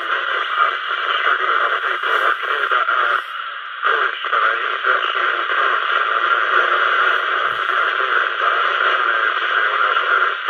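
Steady static hiss from the speaker of an AudioLine 27 MHz CB radio, heard with the squelch open on a channel where no station is coming through clearly. The hiss dips briefly about three seconds in, then comes back at the same level.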